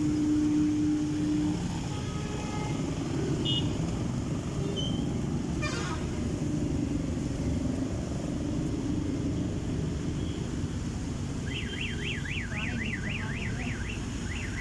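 Steady street traffic rumble. A steady horn-like tone lasts about a second and a half at the start. About three-quarters of the way in, an electronic car alarm begins warbling rapidly up and down, about four times a second.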